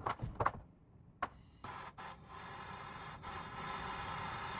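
A few handling clicks and a knock, then, about a second and a half in, a handheld gas brazing torch lights and burns with a steady hiss that slowly grows louder, as it heats the compressor's discharge and suction pipe joints for brazing.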